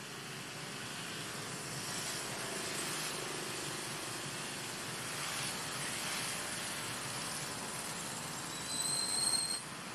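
Steady rushing background noise of the open air. A brief, high, whistle-like call sounds for under a second near the end.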